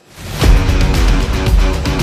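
Soundtrack music: a short rising swell, then loud, full music with a driving drum beat kicks in about half a second in.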